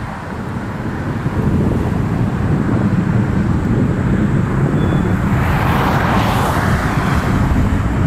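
Wind rumbling on the microphone, with a hissing swell that rises and fades about six seconds in.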